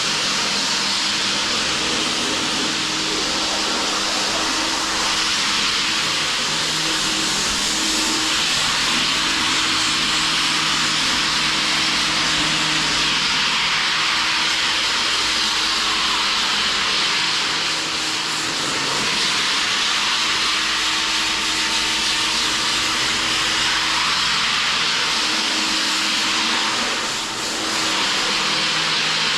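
A motor running steadily with a loud airy hiss and a low hum underneath, dipping briefly twice in the second half.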